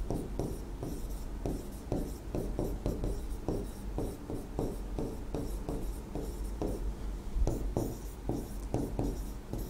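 Stylus writing on an interactive display screen: a quick, uneven run of short scratching and tapping pen strokes as words are written out.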